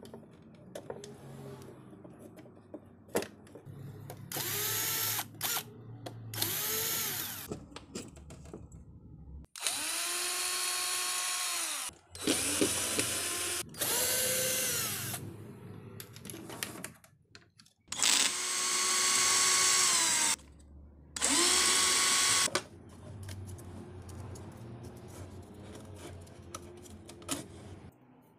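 Electric screwdriver running in about seven short bursts of one to two and a half seconds, driving the terminal screws of an angle grinder's switch. Each whine rises as the motor spins up, holds steady, then falls away, with light clicks of handling between bursts.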